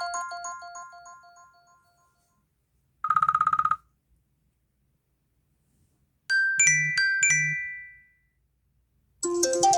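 A run of iPhone ringtones played one after another. A melodic ringtone fades out over the first two seconds, a short buzzing trill sounds about three seconds in, a few quick bell-like chimes follow about six and a half seconds in, and a new ringtone with a repeating melody starts near the end.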